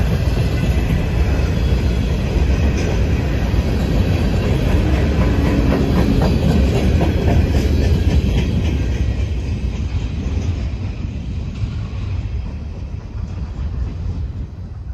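Freight cars rolling past, their wheels rumbling steadily on the rails. About halfway through the last cars go by and the rumble slowly fades as the train moves away.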